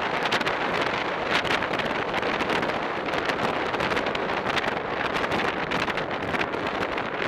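Wind rushing over the microphone of a camera on a bicycle moving at racing speed, a steady rush broken by frequent irregular buffeting gusts.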